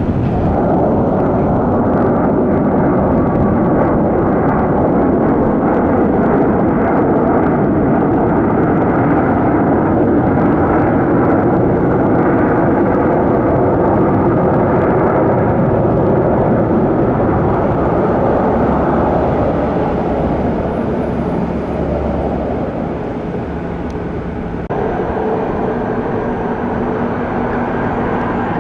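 A large aircraft's engines make a loud, steady rush for most of the clip, easing off about twenty seconds in. Near the end the sound changes abruptly to a lower, steadier engine hum.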